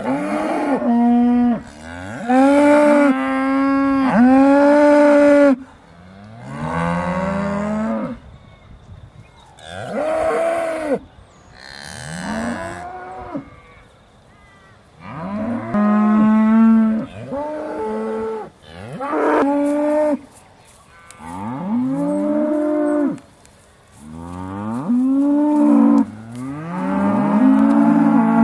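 Aussie Red dairy cows mooing, one loud call after another, each lasting one to two seconds, some overlapping, with short pauses between: cows calling while they wait to be milked.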